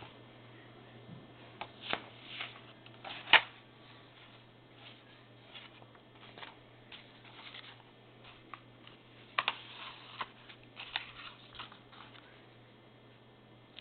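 Vintage Smith Corona typewriter being worked by hand: scattered mechanical clicks and clacks, with one sharp, loud clack about three seconds in and a quick run of clicks around nine to eleven seconds.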